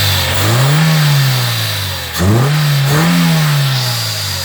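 2008 Kia Spectra's four-cylinder petrol engine revved twice, its pitch climbing and falling back each time. The engine is running on fuel rail pressure near 110 psi instead of about 50, from a fuel pressure regulator stuck closed, which makes it run rich with black smoke.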